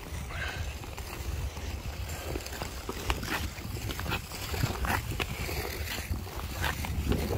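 Ice skate blades scraping and gliding over outdoor natural ice, short scrapes about once or twice a second over a constant low rumble.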